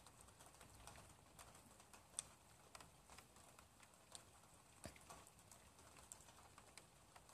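Near silence with faint, irregular ticks and taps, a few a second, the sharpest about two seconds in.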